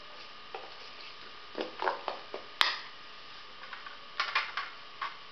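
Steel spoon scraping and knocking against a stainless steel bowl while stirring thick semolina batter, in a few short scrapes with one sharp clink about two and a half seconds in.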